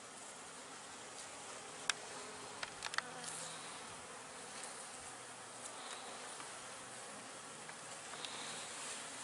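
Honey bees buzzing steadily at an open hive. A few sharp clicks come about two to three seconds in.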